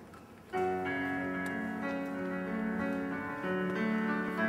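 Recorded pop song starting about half a second in with a piano intro of steady chords, after a faint hiss.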